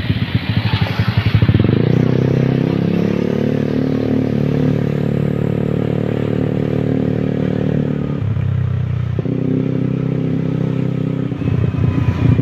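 Motorcycle engine running under way at a steady note for several seconds. The note drops for about a second some eight seconds in, then picks up again and eases off near the end.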